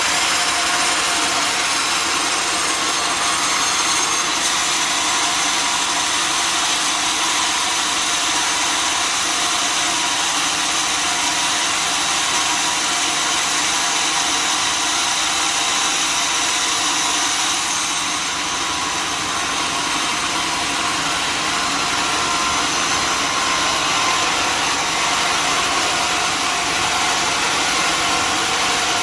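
Sawmill machinery running steadily, a loud mechanical drone with several steady tones over a broad hiss. The high hiss thins out for a few seconds a little past the middle, then returns.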